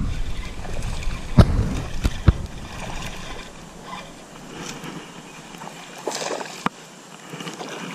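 Water sloshing and splashing as a hooked largemouth bass is reeled in on a spinning rod. Sharp knocks and rubbing from handling the rod and reel come in the first two seconds or so.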